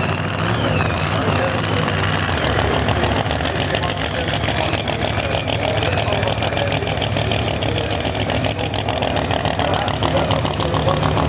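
Supercharged V8 engine of a Corvette Pro Mod drag car idling, a steady low rumble broken into fast, even pulses.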